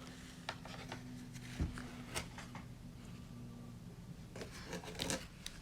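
Hands working kinetic sand and small plastic shaping tools: faint, scattered clicks and soft rubbing noises.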